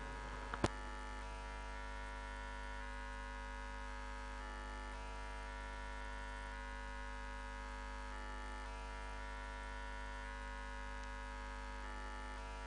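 Steady electrical mains hum and buzz on the sound-system feed, with one short click about half a second in.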